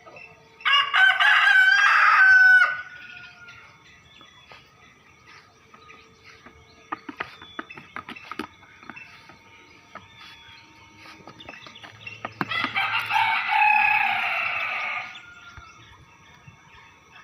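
A rooster crowing twice, about ten seconds apart, each crow lasting two to three seconds and trailing off at the end.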